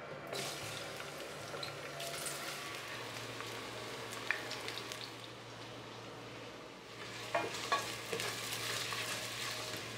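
Sliced onions sizzling as they fry in hot oil in a stainless steel pot, the sizzle starting as they go in. A wooden spoon stirs them, knocking against the pot about 4 seconds in and a few times near 7 to 8 seconds.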